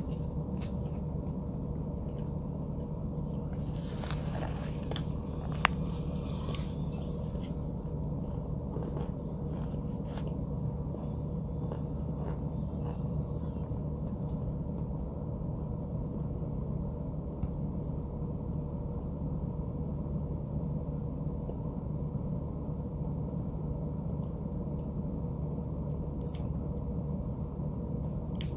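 Steady low electrical hum, with a few faint short clicks about four to six seconds in and again near the end.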